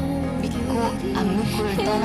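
Background music with long held notes, the song laid over the drama clips.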